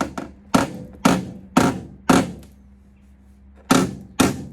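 Hammer blows on a steel car-body repair panel, knocking it into shape to fit before it is tack-welded. Four sharp strikes about half a second apart ring briefly, then after a pause two more come near the end.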